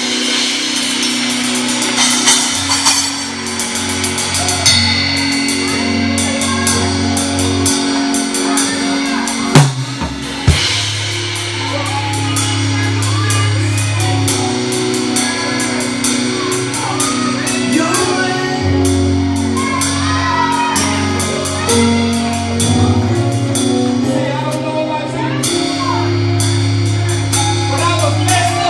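Live gospel music with a drum kit playing a steady groove of cymbal and drum hits, over held bass notes and voices singing. Two hard accents land about ten seconds in.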